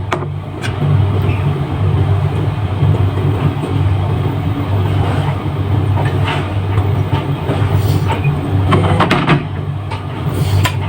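Steady low hum with scattered light clicks and knocks.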